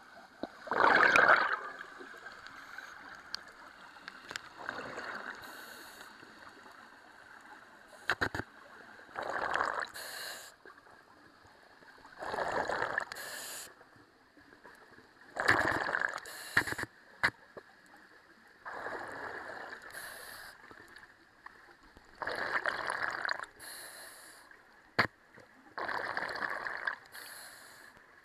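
Scuba diver breathing through a regulator underwater: a burst of exhaled bubbles every three to four seconds, with quieter hissing between, over a faint steady tone.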